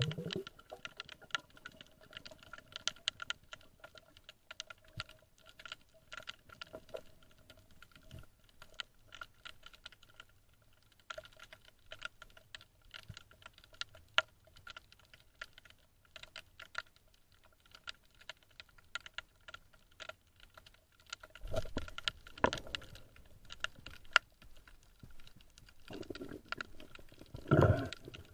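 Underwater recording: a dense, irregular crackle of small clicks over a faint steady hum, with a few louder bumps and rustles of the diver moving near the end.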